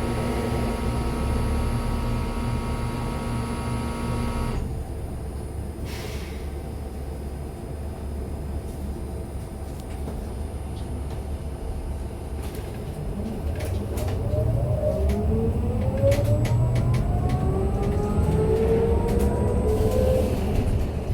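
MAZ-303E23 electric bus: a steady electrical hum cuts off suddenly about four and a half seconds in. From about thirteen seconds in, the electric traction drive whines, rising in pitch as the bus accelerates, over road rumble with scattered rattles and knocks.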